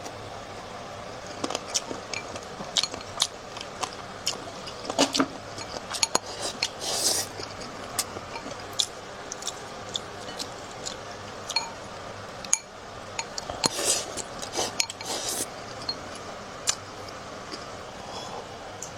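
Close-miked eating: chopsticks or a spoon clicking against a bowl many times at irregular intervals, with chewing and mouth sounds, including a few short louder noisy bursts about seven seconds in and again around fourteen to fifteen seconds.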